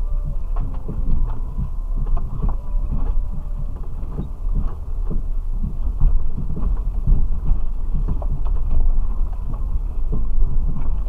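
Low, steady drone of a 4x4's engine crawling along a rough, rutted dirt track, heard from inside the vehicle, with frequent knocks and thuds as it jolts over the ruts.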